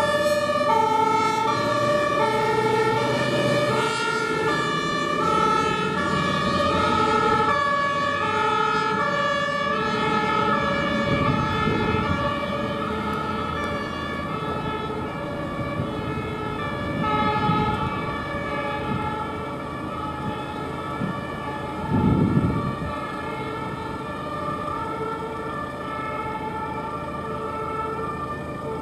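Two-tone sirens of several fire engines on an emergency run, more than one sounding at once and out of step, each stepping back and forth between two pitches. The sirens grow fainter in the second half over road traffic noise, with a louder rush of a vehicle passing close about three-quarters of the way through.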